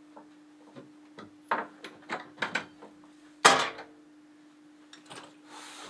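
Old wooden cupboard's metal hasp unfastened and its double doors pulled open: a run of small clicks and knocks, then one louder wooden knock about three and a half seconds in.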